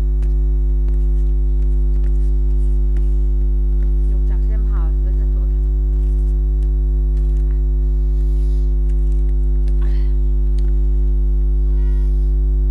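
Loud steady electrical hum, a low buzz with several fixed tones above it, drowning the recording: a faulty audio track. Faint clicks and faint voice sounds can be heard under it.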